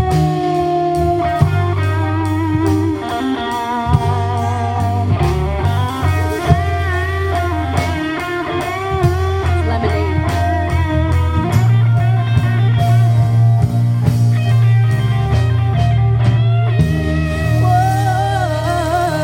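Live R&B song: a guitar melody with bending notes over a deep, steady bass line and a beat.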